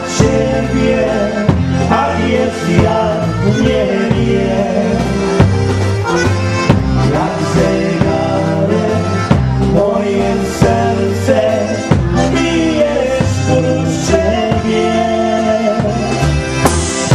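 Live dance band playing a waltz, with an accordion carrying the melody over a steady beat.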